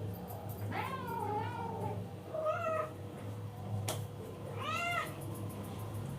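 Domestic cat meowing three times: a long call about a second in, a shorter one near the middle, and a brief one near the end, with a single sharp click just before the last.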